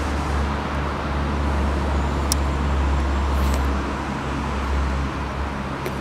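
Steady low rumble of motor traffic and engines, with a faint sharp click a little over two seconds in.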